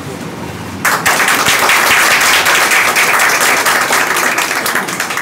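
A small group of people clapping in applause, starting suddenly about a second in.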